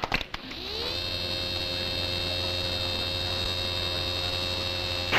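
Electronic dramatic sound effect: a tone made of several pitches rises over the first second, then holds steady over a low hum.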